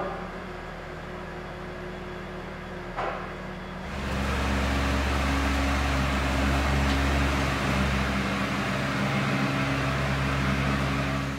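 Heavy work machinery running steadily with an engine-like hum, with two short knocks early on; from about four seconds in a louder machine sound with several steady low tones takes over, then cuts off abruptly.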